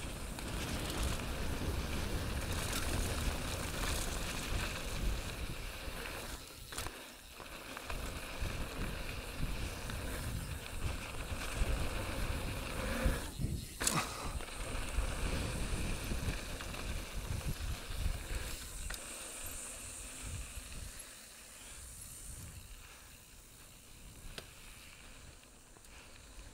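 Mountain bike riding fast down a dirt trail: tyres crunching over dirt and rocks, the bike rattling, and wind rumbling on the helmet camera's microphone. There are two brief lulls, about 7 s and 13 s in, and the second ends in a sharp knock. The riding noise grows quieter near the end.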